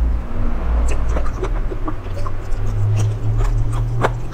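Close-miked eating: chewing with scattered mouth clicks and smacks, one sharper smack near the end, over a steady low rumble.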